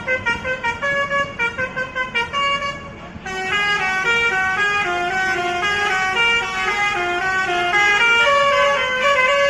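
Indonesian bus 'telolet' horn, a set of multi-tone musical air horns: for about three seconds it sounds short, quick toots at changing pitches, then after a brief dip it plays an unbroken tune of stepping notes.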